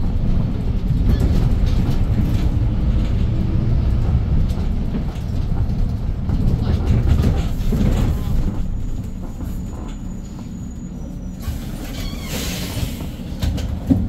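Cabin rumble of a Hyundai New Super Aerocity city bus under way, its CNG engine and the road noise heard from inside, easing off about two-thirds of the way through. A brief hiss comes near the end.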